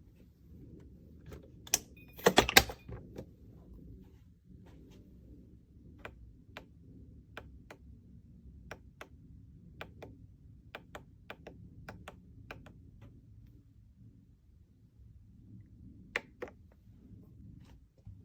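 Sharp clicks and taps of small hard objects: a loud clatter about two seconds in, then a run of single clicks about two a second, and two more clicks near the end.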